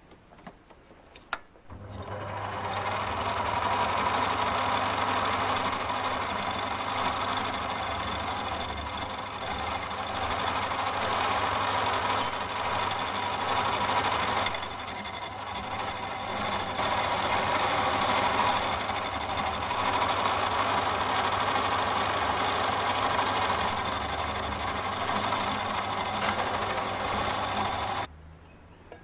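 Torq MB1910 mini lathe switched on with a click, its motor and spindle starting up about two seconds in and running steadily, dipping a little about halfway. It is switched off and stops suddenly shortly before the end.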